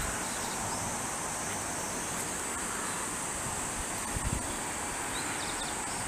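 Steady rural outdoor ambience with a continuous high-pitched insect trill, and a brief low thump about four seconds in.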